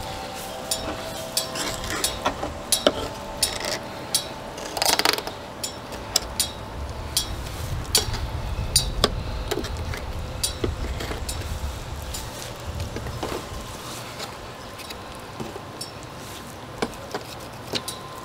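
Fillet knife working a flathead catfish fillet off the carcass on a plastic table: a scatter of small irregular clicks, taps and scrapes as the blade cuts and knocks against the fish and the table.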